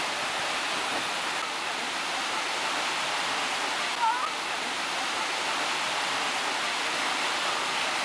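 Water rushing steadily down the start chute of a water-park tube slide, with a brief high-pitched chirp about four seconds in.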